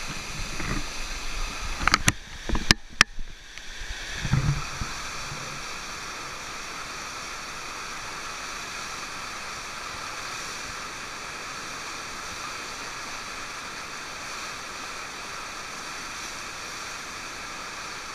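Steady rush of water from an artificial surf ride, its sheet wave pouring and churning over the ramp. Near the start, a few sharp knocks and thumps stand out above the water.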